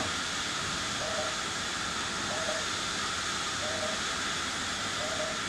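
Steady, even hiss, with a faint short tone that repeats about every second and a half.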